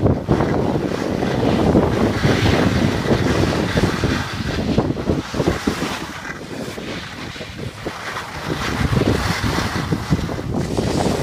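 Wind rushing over the microphone while skiing downhill, mixed with the scrape and hiss of skis on packed snow. It eases a little past the middle, then builds again.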